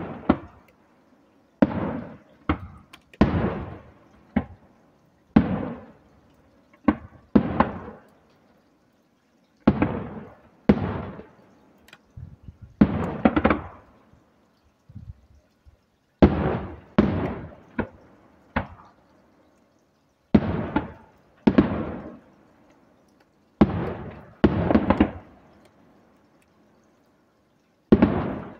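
Aerial firework shells bursting, one sharp bang after another, each trailing off in a fading echo. The bangs often come in pairs or threes a second or two apart, with a pause of a couple of seconds near the end.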